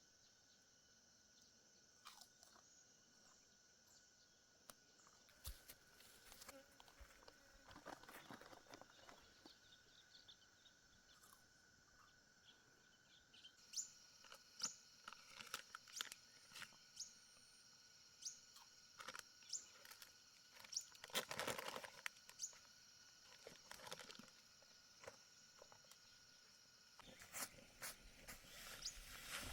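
Faint scattered clicks and crunching rustles, growing busier about halfway through, over a steady faint high-pitched whine.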